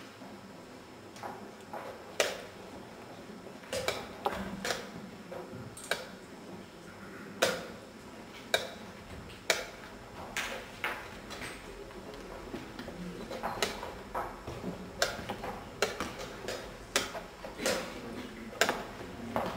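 Wooden chess pieces set down on the board and the buttons of a digital chess clock pressed in fast blitz play, with both players down to seconds: sharp clicks and knocks at irregular intervals, coming quicker in the second half.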